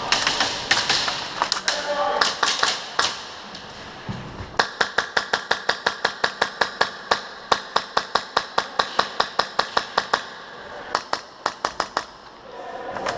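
Airsoft guns firing: long strings of sharp shots, about six a second, with short breaks between runs.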